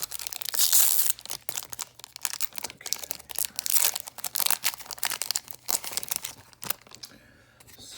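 Foil wrapper of a Magic: The Gathering booster pack being torn open and crinkled by hand: a rapid run of crackles and rips that thins out near the end.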